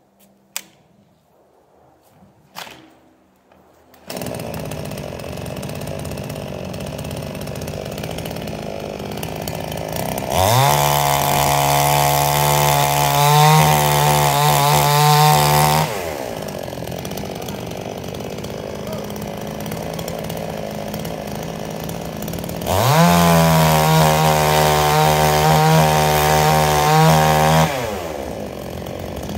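Gas chainsaw starting up about four seconds in and idling, then revved to full speed twice for about five seconds each while cutting into the pine logs, dropping back to idle between cuts.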